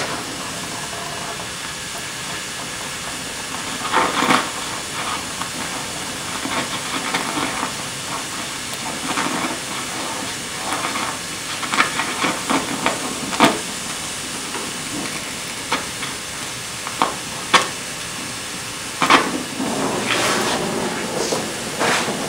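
Gas welding torch flame hissing steadily, with occasional sharp pops and crackles every second or two while welding a steel tube frame.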